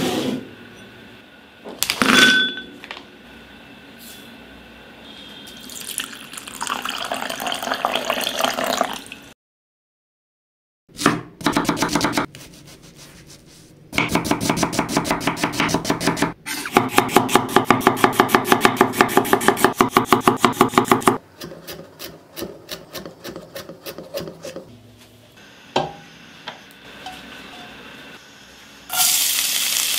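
Chef's knife chopping a red onion on a wooden cutting board in fast, even strokes, about six a second. Earlier a glass bowl clinks with a short ring, and just before the end a steady hiss starts in the pan.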